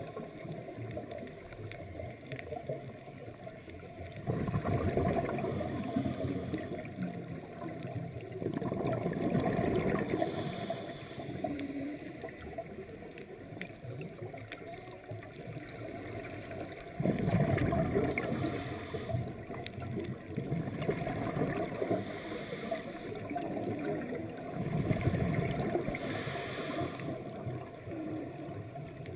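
Underwater bubbling and rushing heard muffled through the camera housing, swelling into a loud burble every several seconds, as a scuba diver's regulator exhaust bubbles do.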